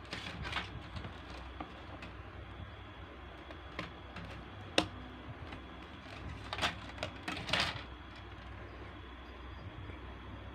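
Scattered clicks and rustling, with one sharp click about five seconds in and a short flurry of rustling a couple of seconds later, over a steady low hum.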